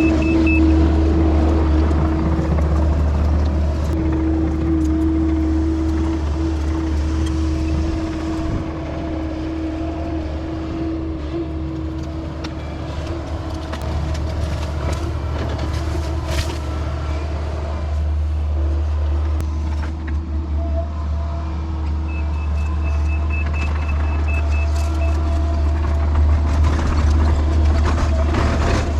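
A tracked excavator of about 34,000 lb is running. Its diesel engine drones steadily with a steady whine on top, easing off for a few seconds about a third of the way in. A rapid high-pitched alarm beeping sounds at the start and again for a few seconds near the end.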